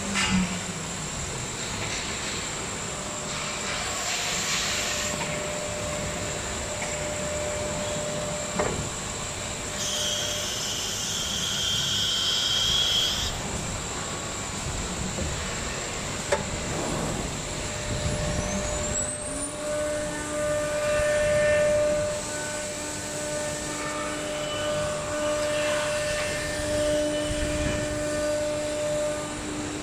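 CNC router's ATC spindle winding down with a falling whine, then a hiss of compressed air for about three seconds while the linear automatic tool changer swaps the cutter. A little past halfway the spindle winds back up with a rising whine, then runs at a steady whine carving the wooden panel.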